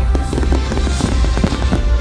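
Fireworks display soundtrack music with a heavy bass, mixed with many short firework bangs and crackles.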